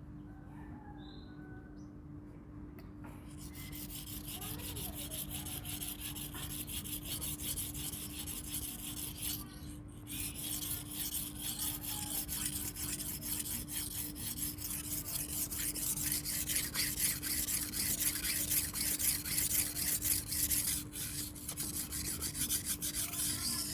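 Knife blade stroked rapidly back and forth on a water-soaked Payakumbuh natural whetstone, a dense rasping scrape that is not very shrill. It starts about three seconds in and breaks off briefly near the ten-second mark.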